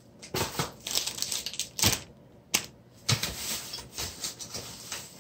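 Irregular clicks and knocks with some crinkling as purchased items and their packaging are handled off-camera.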